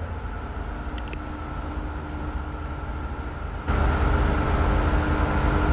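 Steady machine running with a low rumble and a constant hum; about two-thirds of the way in it suddenly gets louder, with added hiss.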